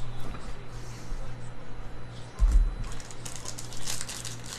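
Trading card packs and cards being handled: light clicking, then a soft thump about two and a half seconds in, followed by crisp crinkling and rustling of pack wrappers and cards near the end, over a low steady hum.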